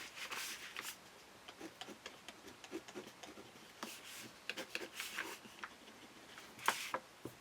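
A 0.5 mm Uni-ball gel pen writing on paper: faint, short scratchy strokes, a little louder near the end.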